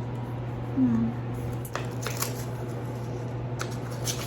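Light paper rustling and crinkling as a small paper envelope is handled and opened, with a few short crackles scattered through the second half, over a steady low hum. A brief murmured voice sound comes about a second in.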